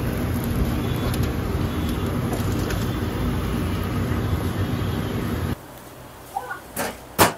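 Steady, loud rumbling noise, like a motor or traffic, around the charcoal kebab grill. It cuts off abruptly about five and a half seconds in, leaving a much quieter room in which two sharp knocks sound near the end, the second one louder.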